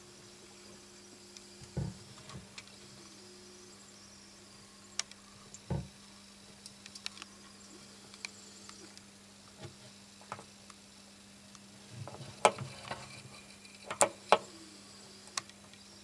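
A steady low hum with scattered sharp clicks and knocks; the loudest knocks come close together about twelve to fourteen seconds in.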